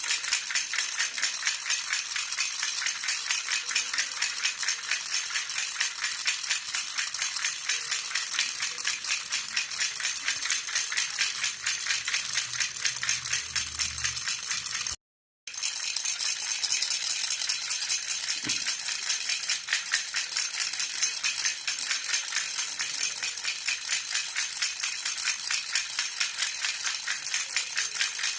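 Jhunjhuna baby rattle shaken steadily and rapidly, a continuous bright jingling clatter, with one brief break of silence about halfway through.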